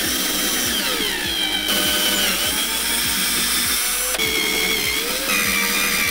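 Electric drill spinning a twist bit into a wooden board. Its motor whine sags as the bit bites and rises again, twice.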